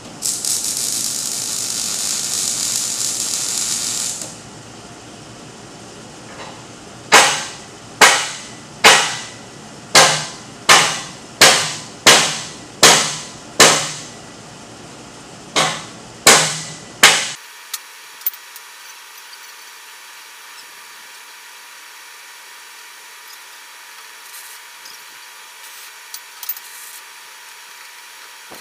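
Hammer striking a steel-tube frame, about a dozen sharp, ringing blows with a short pause partway through. Before the blows there is a steady high hiss for about four seconds.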